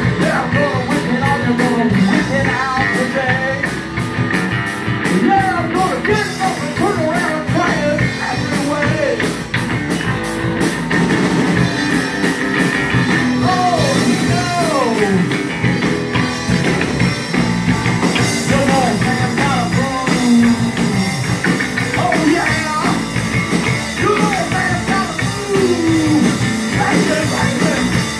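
Live rock band playing loud: electric guitar, bass and drum kit with cymbals, and a male singer's vocals over them.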